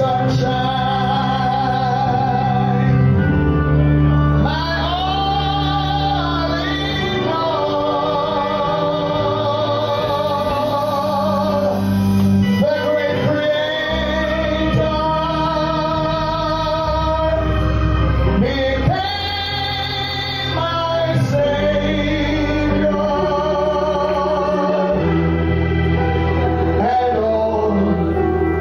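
A man singing a gospel hymn into a microphone, his held notes wavering with a wide vibrato, over instrumental accompaniment with steady low bass notes that change every second or two.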